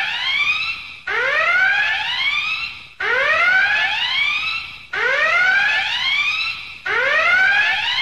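Whooping alarm sound effect: a loud siren tone that sweeps up quickly and then levels off and fades, repeating about every two seconds.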